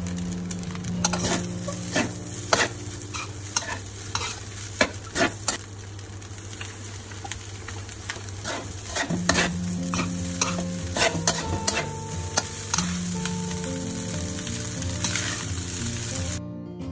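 Spatula scraping and knocking against an aluminium wok as fried rice is stir-fried, with a steady sizzle under many sharp, irregular clinks. It cuts off abruptly just before the end.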